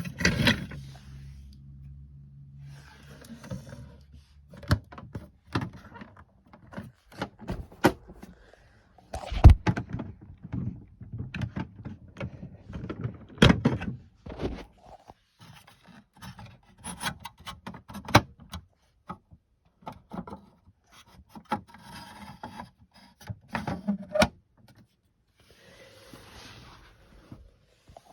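Toy washing machines being handled: irregular plastic clicks, knocks and rubbing, some sharp and loud, with a low hum that dies away a few seconds in.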